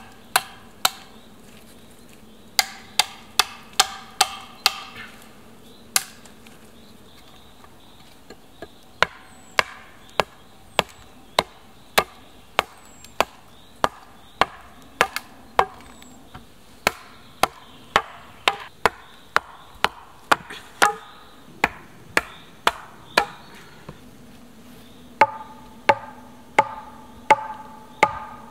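Repeated sharp chops of a blade into wooden poles, trimming them and cutting points, at about one or two strokes a second with short pauses. Near the end come evenly spaced wood-on-wood knocks with a short ringing tone, as a log is pounded down onto an upright pole.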